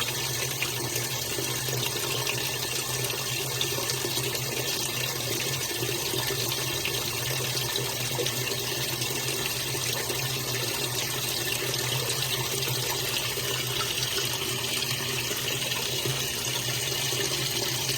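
Top-loading washing machine filling: a steady rush of water pouring into the drum, with a low steady hum underneath.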